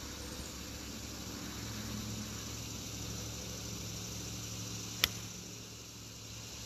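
A golf club striking a ball off the tee: one sharp crack about five seconds in, over a faint steady hum and hiss.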